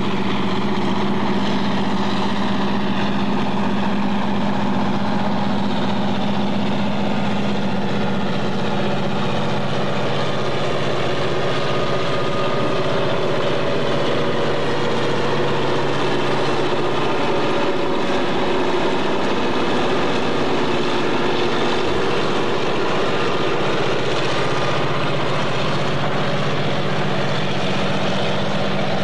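Diesel switcher locomotive engines running with a steady low drone as the switchers move a string of freight cars past.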